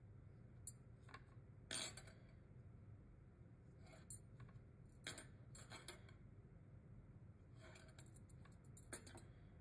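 Near-silent room tone with a steady low hum and several brief, faint scratches and light taps as an ink brush is stroked on paper and the painting hand moves over the sheet. The loudest comes about two seconds in.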